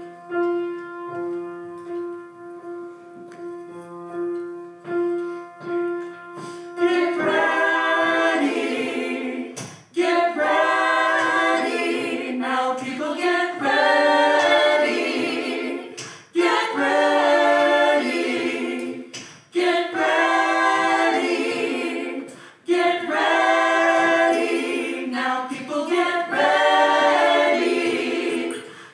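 A short piano introduction of held, decaying chords, then a small mixed-voice church choir comes in about seven seconds in, singing a slow song in phrases with brief breaths between them, with piano accompaniment.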